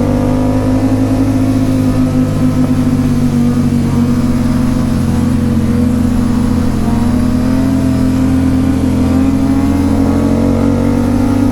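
Motorcycle engine running at steady cruising revs while riding, its pitch easing down slightly and climbing again about seven seconds in, over a constant rushing noise.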